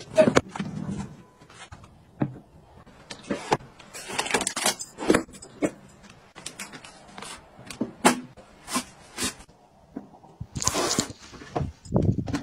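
Plastic bathroom storage pieces being handled: a drawer, a hinged flap and a bin lid opened and shut in a run of sharp clicks and knocks, with a couple of brief rustles.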